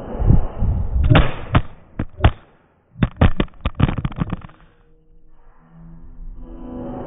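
iPhone SE 3 in a rugged protective case dropped onto a hard surface: a series of sharp impacts and clattering as it hits and bounces. This happens twice, with a brief silence between, and the second run is quicker and busier.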